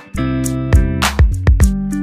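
Background music: guitar chords over a steady beat.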